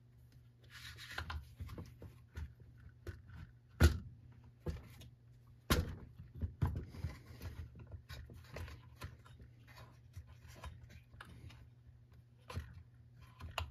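Plastic clicks, taps and rubbing as a string trimmer's plastic recoil starter housing is handled and pressed down onto the powerhead to seat it, with two sharper knocks about four and six seconds in.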